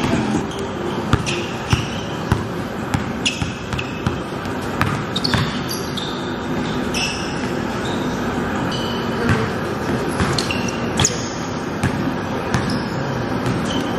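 A basketball bouncing on a hardwood-style gym court in a large hall, with irregular sharp knocks. Many short, high squeaks from players' sneakers on the floor come between the bounces.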